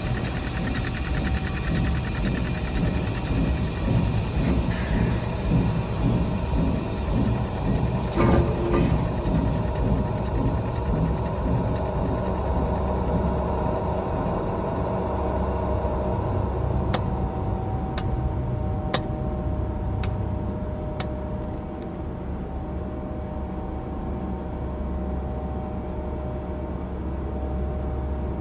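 A steady low rumble overlaid with a layer of high steady tones; the high tones fall away about eighteen seconds in, and a few sharp clicks sound around then.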